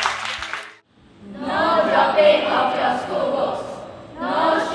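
Background music fades out in the first second. After a brief pause, a large class of students recites a poem in unison in choral speaking style, many voices together in two phrases, the second starting about four seconds in.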